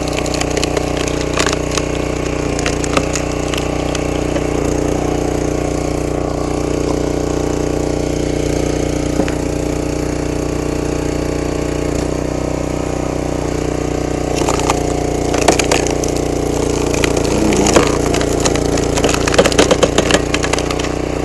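Brute 35-ton log splitter's engine running steadily while logs are split, the wood cracking and splintering in sharp snaps, a cluster near the start and a longer run of them in the last third.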